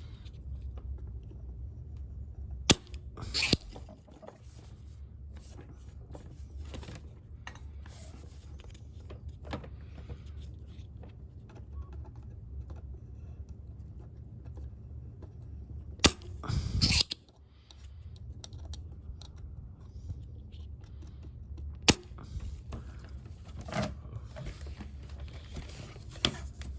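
Hand-soldering work: a few sharp clicks and short scraping, crackling bursts as the soldering iron and parts are handled at the board, over a steady low hum.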